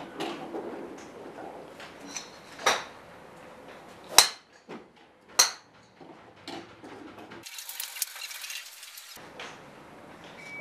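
Golf club heads striking balls at a driving range: a sharp, loud metallic crack about four seconds in, another about a second later, and a fainter one before them.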